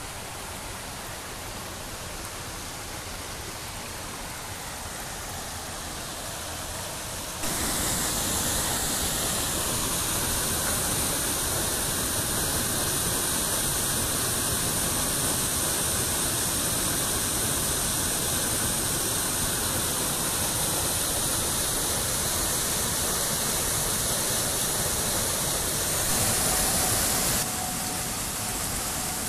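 Steady rush of running water: a small waterfall pours into a pool, getting louder about seven seconds in, and near the end a shallow woodland stream runs over stones.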